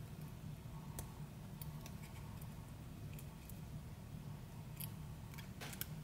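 Faint, scattered metallic clicks of a disc-detainer pick turning the discs inside a W-Lok Ovallok padlock, with a small cluster of clicks near the end, over a steady low hum.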